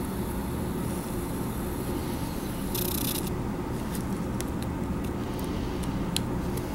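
Steady low background rumble, with a short hiss about three seconds in and a few small ticks after it.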